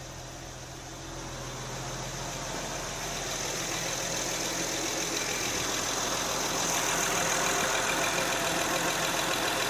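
Freshly installed replacement Honda J35 3.5-litre V6 idling steadily, running after its first start in the car. The sound grows louder over the first seven seconds or so, then holds.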